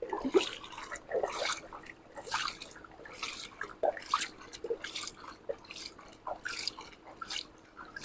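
Water splashing and dripping in short, irregular spurts, about two a second, as a toy truck is washed.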